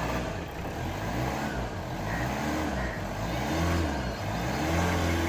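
Hyundai Santa Fe 2.2 CRDi diesel engine being revved with the accelerator several times, its pitch rising and falling with each blip. It is running normally again now that the no-start fault, rat-chewed fuel pump wiring, has been repaired.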